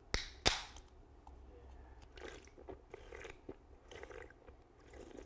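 A can of Heineken 0.0 non-alcoholic beer cracked open: a sharp click of the ring-pull, then a louder crack with a short fizz half a second later. After that come about six soft gulps, roughly one every half second, as it is drunk.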